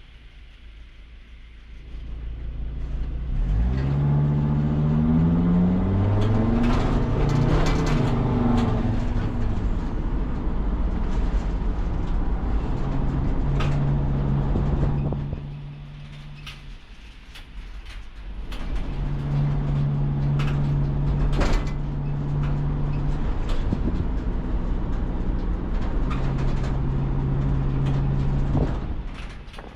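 Sprinter van engine heard from inside the cab while driving: it climbs in pitch as the van accelerates, holds a steady drone at speed, eases off about halfway through, then picks up and holds again before dropping away near the end.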